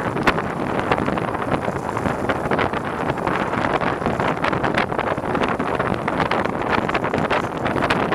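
Wind buffeting an action camera's microphone on a moving bicycle, a loud steady rush, with many short clicks scattered through it.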